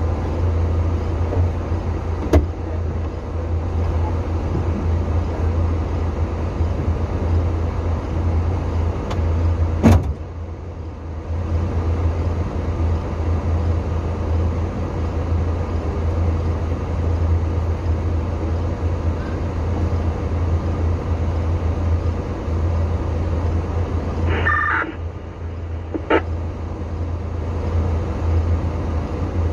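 Vehicle engine idling steadily, a continuous low hum, with a few sharp clicks; the loudest click is about ten seconds in.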